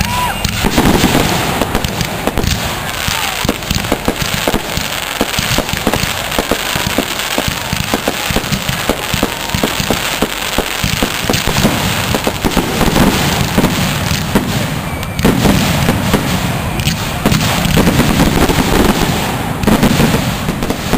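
Aerial fireworks bursting in rapid succession: a dense, unbroken run of bangs and crackle.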